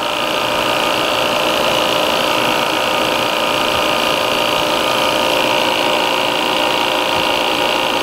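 Appion G5 Twin refrigerant recovery machine running steadily, its compressor pulling R-410A out of a central air conditioner. It makes a constant mechanical hum with a high whine.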